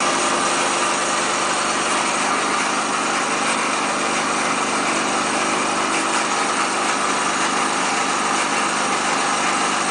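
Electric motor on a motor test bench running steadily at about 1500 rpm under a light load, a steady, even noise with no clear pitch.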